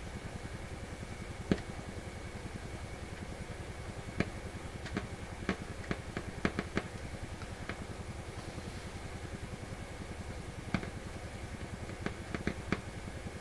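PYE 39HC valve shortwave receiver's loudspeaker putting out a low thumping and a higher buzz, with a faint steady high tone, while capacitor values in its tone circuit are tried for more bass. About a dozen sharp clicks and crackles break in, several bunched in the middle and a few near the end.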